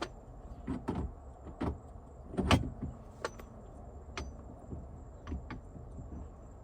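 A series of sharp clicks and knocks from hand work on a steering column as a quick-release steering wheel and its hub are fitted. The loudest knock comes about two and a half seconds in.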